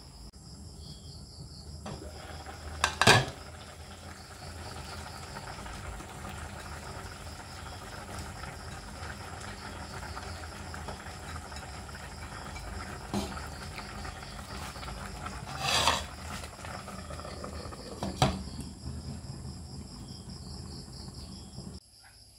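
Soup simmering in a stainless steel pot on a gas stove, a steady hiss, with a few metallic clinks and clatters of the pot's glass lid and a plate as cut vegetables are tipped in: one about three seconds in, a longer clatter around sixteen seconds and a sharp clink near eighteen. Insects trill steadily in the background.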